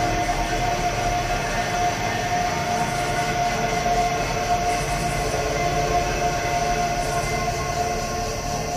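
Steady, unbroken ambient drone made of many held tones, one middle pitch standing out above the rest, with no sudden events: a sound-design soundtrack laid over the scene.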